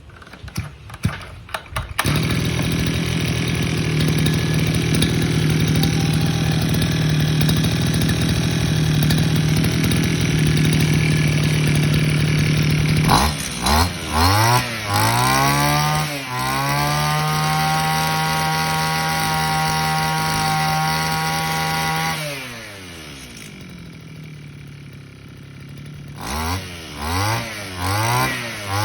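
Hitachi CG33 two-stroke brush cutter engine: a few sputters, then it settles into a steady idle about two seconds in. From about halfway it is blipped several times, held at high revs for some seconds, drops back to idle, and near the end is blipped repeatedly again.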